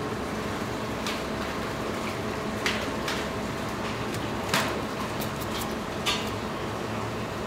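A knife knocking sharply on a cutting board about five times at uneven intervals while a whole fish is cut open, over a steady background hum.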